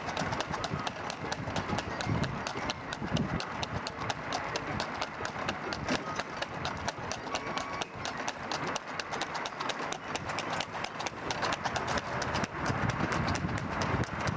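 Hooves of a horse pulling a two-wheeled tanga cart, clip-clopping rapidly and steadily on a paved road at racing speed.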